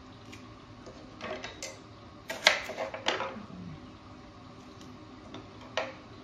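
Banana stem's outer layers being peeled away by hand to reach the tender core: a few crisp snaps and cracks of the fibrous stem, the loudest cluster about halfway through, with a single sharp click near the end.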